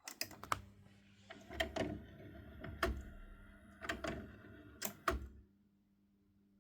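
About ten sharp clicks and clunks over five seconds, with a faint low steady hum underneath: Grundig Fine Arts M100 hi-fi components being switched and operated.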